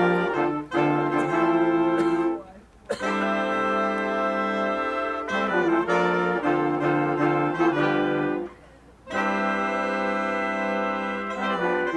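Big band of trumpets, trombones and saxophones playing held chords together. The band cuts off sharply about two and a half seconds in and again about eight and a half seconds in, each time coming back in after a short break.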